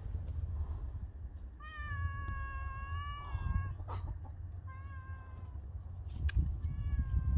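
A cat meowing: one long drawn-out meow, a short one, then another long meow starting near the end, heard over a low rumble.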